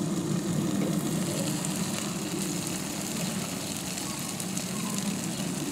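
Burger patties and sausages sizzling in a cast-iron skillet heated by a parabolic solar cooker, a steady fine crackle, over a steady low rumble.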